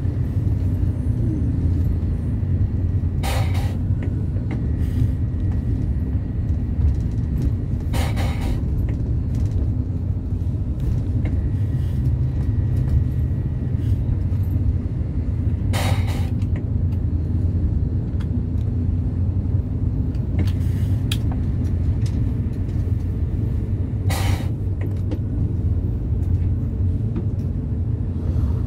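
Steady low rumble of a vehicle driving, engine and tyre noise on a wet road, with four short hissing swishes several seconds apart.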